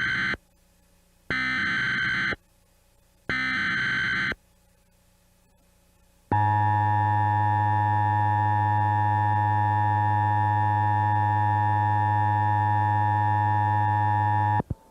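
Emergency Alert System alert tones: the end of one short screeching digital header burst and two more about a second apart, then after a brief pause the steady two-tone attention signal for about eight seconds, cutting off abruptly near the end. They herald a severe thunderstorm warning.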